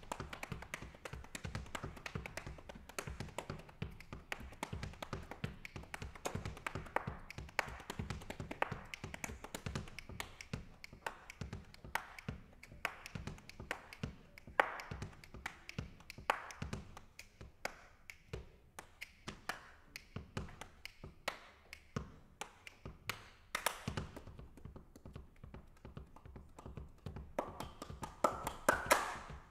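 Solo body percussion: rapid rhythmic slaps of the hands on the thighs and body, mixed with hand claps. A brief voice-like sound comes near the end.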